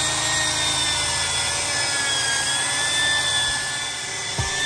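Angle grinder with a wire wheel running steadily against the rusty metal floor pan of a VW bus, stripping rust with a steady whine. A few low thumps come near the end.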